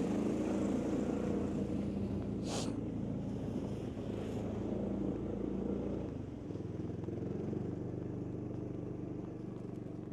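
John Deere utility cart's engine running steadily. Its note drops a little about six seconds in, and a brief rushing sound comes about two and a half seconds in.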